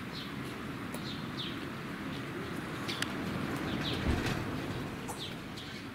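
Birds chirping: scattered short, high calls that drop in pitch, over a steady low background rumble.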